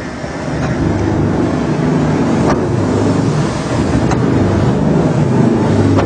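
Brine injector machine running: a steady low hum from its motor and pump, with a few sharp clicks at uneven intervals.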